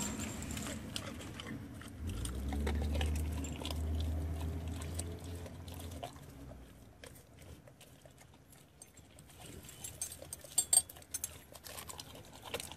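Large long-haired dog chewing and crunching a chicken head with a deworming pill inside, eating it off a concrete floor. A low rumble runs from about two to six seconds in, and scattered clicks come near the end.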